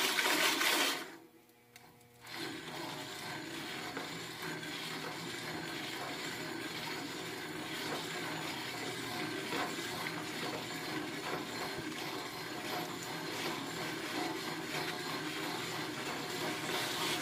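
Jiffy Pop aluminium foil pan being shaken back and forth over a stove burner, a steady scraping, rustling rattle, with the kernels not yet popping. The sound drops out briefly about a second in.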